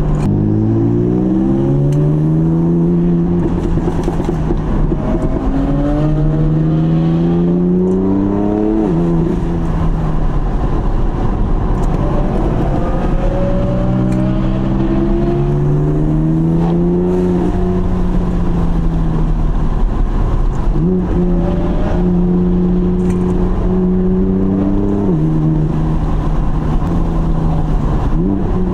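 BMW F80 M3's S55 twin-turbo straight-six driven hard, heard from inside the cabin. The engine note climbs in pitch under acceleration and drops sharply at each gear change, several times over.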